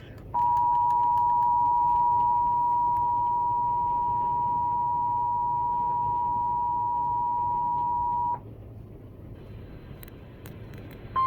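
Emergency Alert System attention signal: two steady tones sounding together for about eight seconds, then cutting off abruptly. A low hiss with a few faint clicks follows, and right at the end a new single steady tone begins. The attention signal marks an incoming Flash Flood Warning.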